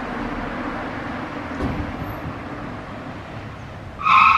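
Steady outdoor street ambience, a low rumble and hum of distant traffic. About four seconds in, a short, loud high-pitched tone cuts in.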